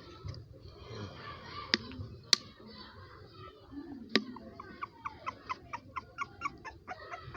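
A chicken clucking in short notes repeated about three or four times a second, from about halfway through, after three sharp clicks in the first half.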